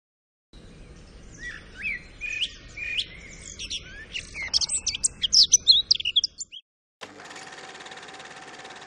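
Birds chirping and singing, with many short calls overlapping over a low background rumble. This stops about six and a half seconds in, and a steady humming noise follows.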